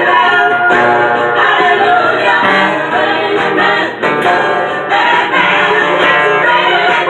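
Music: a strummed steel-string acoustic guitar with singing over it.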